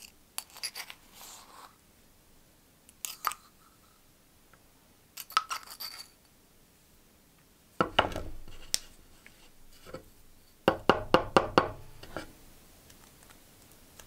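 Needle-nose pliers clicking and scraping against a rusty brass lighter as old wadding is pulled out of it. About halfway through, the metal lighter case knocks down onto a wooden workbench, and a few seconds later comes a quick run of about six knocks against the bench.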